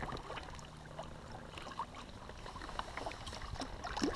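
Quiet lake water lapping and slapping against a kayak's hull, with scattered drips and small splashes.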